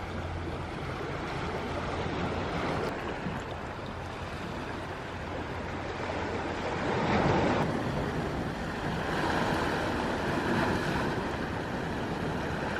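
Waves washing onto the shore, a steady wash of surf that swells louder about seven seconds in and again a little later.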